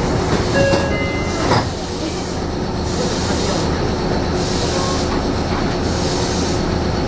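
Meitetsu electric train standing at a station platform, heard from inside the front of the train: a steady low hum with a few short high tones in the first second, a sharp knock about a second and a half in, then several short bursts of hissing.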